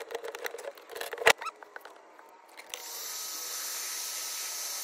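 Hand-pumped hydraulic crimping tool clicking as it presses a copper lug onto 1/0 gauge cable, with one sharp snap about a second in. From about three seconds in, a heat gun blows with a steady hiss.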